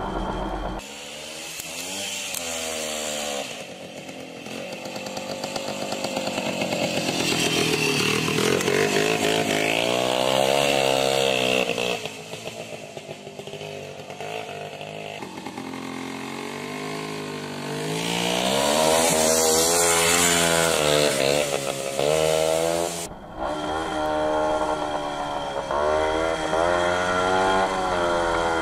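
WSK 125 motorcycle's single-cylinder two-stroke engine being ridden hard, its pitch rising and falling over and over as the throttle is opened and closed and gears change. A steady hiss of wind noise lies over it, and the sound changes abruptly about a second in and again near the end.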